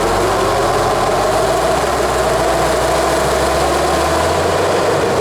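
Off-road 4x4's engine running at low, steady revs as the vehicle creeps slowly ahead.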